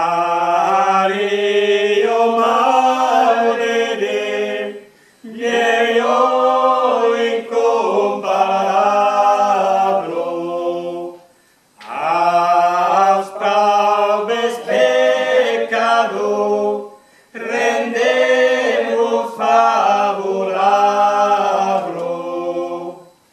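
A small group of voices singing an Occitan song a cappella in close harmony, in four phrases of about five seconds each with short breaks for breath between them.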